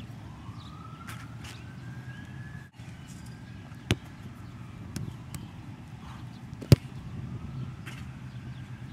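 Two sharp thumps of a soccer ball being struck, the louder one about two-thirds of the way in, over steady outdoor background noise.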